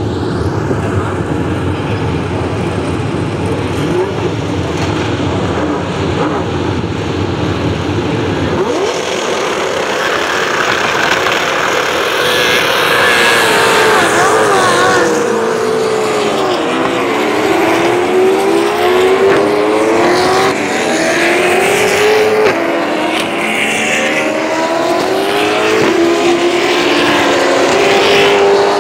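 Race car engines: a low rumble for about the first nine seconds, then many cars revving and accelerating past one after another, their engine notes rising and falling and overlapping.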